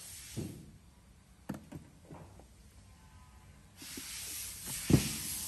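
Soft clicks and handling of an electric actuator's metal top cover as it is unscrewed and lifted off. Nearly four seconds in, a steady hiss starts suddenly, and about a second later there is one sharp knock.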